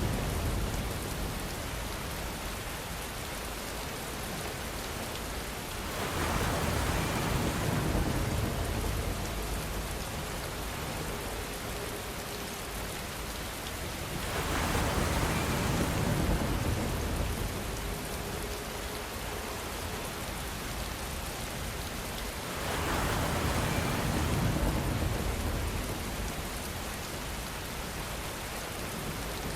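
Steady rainfall, a continuous hiss of drops, swelling louder and fuller three times at even spacing, about every eight seconds, with a low rumble in each swell.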